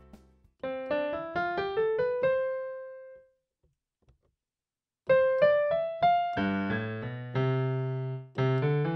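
NUX NEK-100 portable keyboard played on its piano voice in split mode: a quick rising run of single notes whose last note rings out, about two seconds of silence, then another rising run joined by lower bass notes and chords from the lower section.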